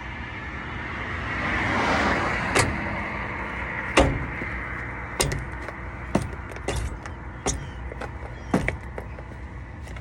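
A vehicle passes by, its noise swelling and fading over the first few seconds, over a steady low rumble. It is followed by a string of sharp knocks and clicks, roughly one a second.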